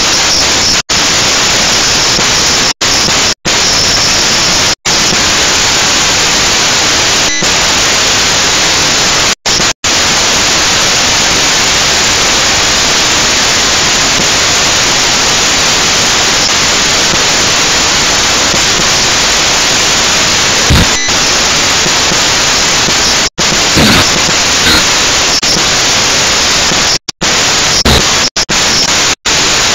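Loud, steady static hiss from a toy quadcopter's onboard camera recording, cutting out to silence for an instant about a dozen times. A few brief knocks come through in the last third.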